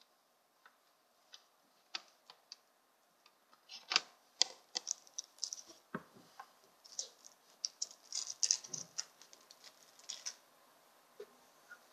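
Light clicks, taps and small rattles of nail-care supplies, small plastic gel-polish pots and tools, being handled and set down on a wooden table. The taps are sparse at first and come in a busier run from about four seconds in.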